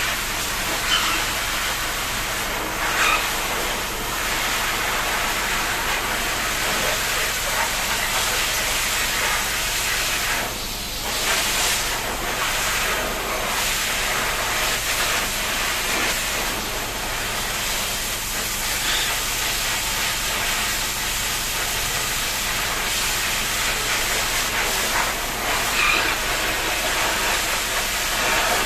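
Water spraying in a steady hiss while a pet bird is showered.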